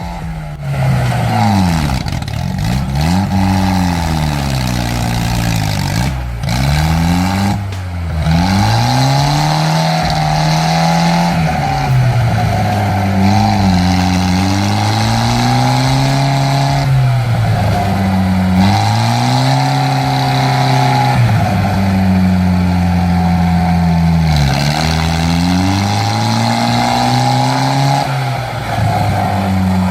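Small off-road vehicle's engine revving hard over and over under heavy load in deep mud. Its pitch climbs and drops every couple of seconds.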